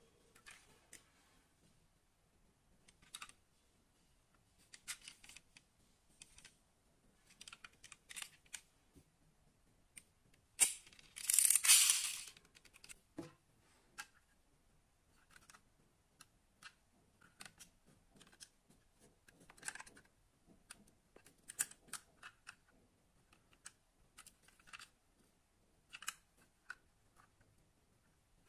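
Scattered small clicks and taps as die-cast model cars are handled and turned in the hands, with a louder rustling scrape about eleven seconds in.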